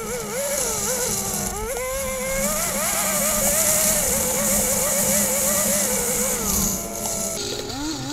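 1996 Yamaha Phazer snowmobile's two-stroke twin engine running at speed, its pitch wavering and climbing about two seconds in, then dropping near the end as the throttle comes off. A steady hiss, loudest in the middle, runs under it.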